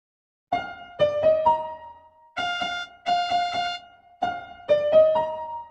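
Huawei phone ringtone playing: a short melody of bright, electric-piano-like notes that starts about half a second in, with a run of repeated notes in the middle and the opening phrase coming back near the end.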